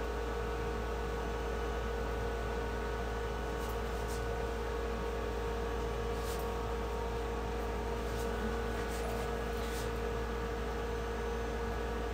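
Steady electrical hum made of several steady tones over a low rumble, with a few faint short ticks scattered through the middle.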